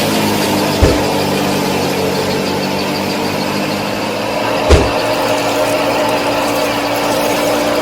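The small motor-driven machinery of a DIY miniature combine harvester and thresher running steadily, a humming whine over a hiss. Two short low thumps come about a second in and just before the five-second mark.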